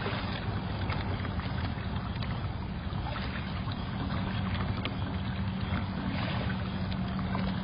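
Water sloshing and lapping in a tiger's pool as the tiger soaks, heard through a security camera's microphone with a steady low hum; a second, higher hum comes in about halfway.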